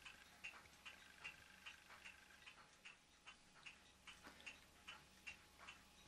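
Faint, regular ticking, about two and a half ticks a second, over a quiet hiss.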